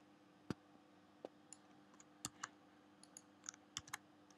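Computer keyboard typing: about a dozen faint, irregularly spaced key clicks over a faint steady hum.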